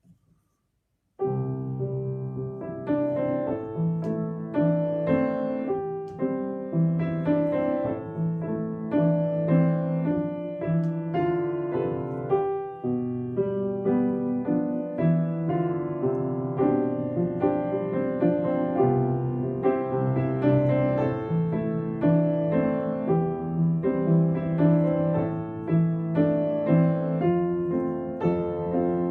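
Piano starting after about a second of silence and playing a slow hymn tune as an instrumental introduction, without singing.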